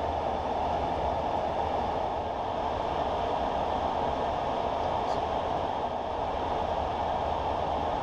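Steady rushing noise inside a Boeing 737-800 cockpit in flight: airflow over the flight deck with the engines running, an even, unchanging roar.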